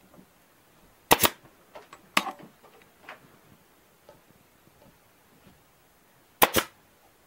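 Pneumatic air stapler firing staples through the deer hide into the mount's wooden backboard: three sharp shots, about a second in, a second later, and again near the end, with faint handling clicks between.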